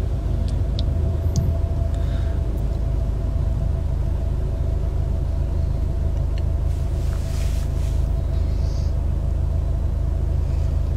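Steady deep rumble of a car on the move, heard from inside the cabin: engine and road noise with a faint steady hum.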